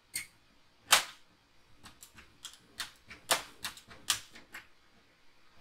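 Sharp plastic clicks and knocks from a paper trimmer being used to score cardstock, about seven in all. The loudest comes about a second in, and a quick cluster follows between three and four and a half seconds.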